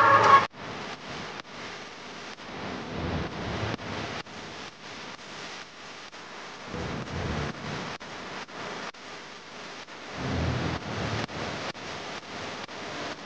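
Wind rushing over the microphone of a camera on a moving bicycle, with small knocks from the road and stronger low gusts about seven and ten seconds in. A siren cuts off sharply about half a second in.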